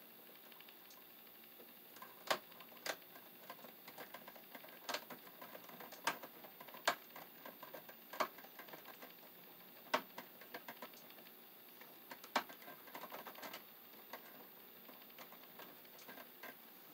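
Irregular small clicks and clatters of stiff copper wires and a plastic wire nut being handled and twisted together at a plastic electrical box, with a handful of sharper clicks scattered through.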